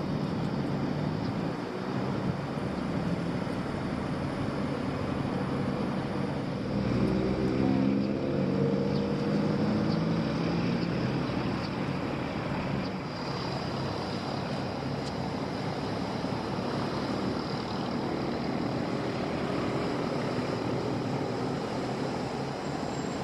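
An engine running steadily, its pitch rising and falling for a few seconds around the middle.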